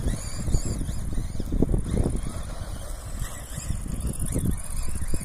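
Radio-controlled Vaterra Glamis buggies driving over a dirt lot: a high motor whine that rises and falls in pitch as they speed up and slow down, most plainly in the first second and again about three seconds in, over a steady low rumble.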